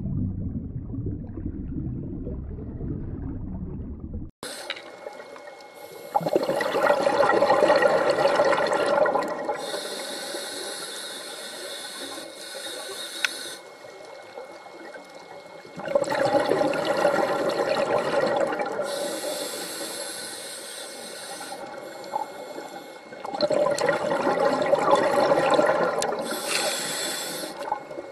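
Scuba diver breathing through a regulator: three long exhalations of rushing, gurgling bubbles, each followed by the hiss of an inhaled breath. Before this, a low underwater rumble fills the first four seconds and cuts off suddenly.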